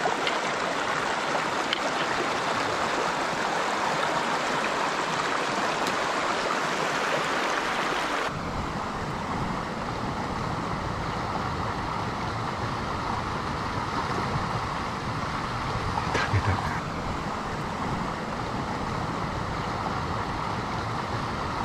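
Mountain stream water rushing steadily over rocks. About eight seconds in it changes abruptly to a fuller, deeper rush of a small cascade, with one brief knock about sixteen seconds in.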